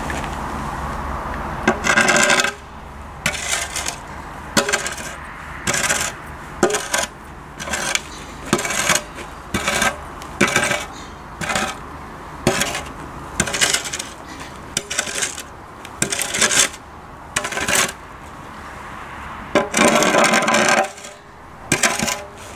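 Manure fork scraping over gravel, scooping up horse manure in short strokes about one a second, with longer scrapes about two seconds in and near the end. A steady low hum comes first.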